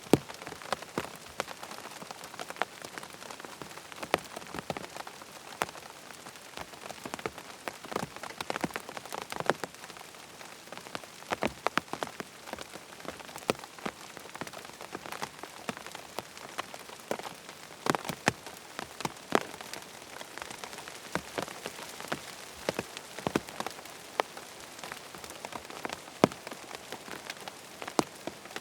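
Rain falling on a tent: a steady patter with many separate drops striking the fabric in irregular, sharp taps.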